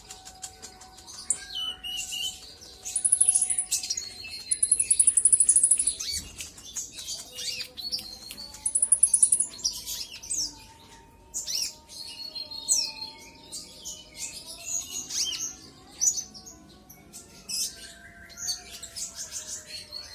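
Sunbird song: rapid high-pitched chirps and twittering, broken by several very high, fast buzzy trills, the loudest about three, five and nine seconds in.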